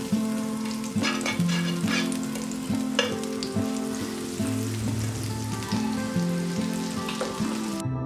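Butter melting and sizzling in a hot frying pan, a steady hiss with scattered crackles, over soft plucked background music. The sizzle cuts off near the end, leaving the music alone.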